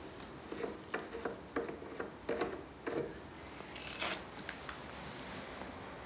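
Handling noises of a plastic fuel jug and clothing: a run of short scrapes and clicks over the first three seconds, then one louder scrape about four seconds in. No engine is running.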